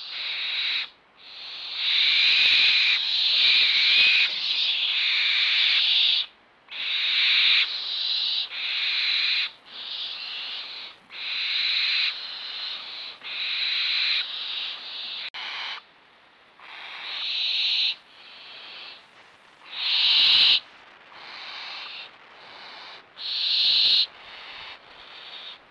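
Young barn owls giving repeated harsh, hissing begging calls, one after another with short gaps, each lasting about half a second to a second and a half.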